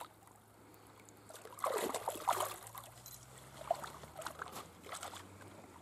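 Shallow lake water sloshing and trickling as a large carp is let go from a wet retention sling and swims off from the margin.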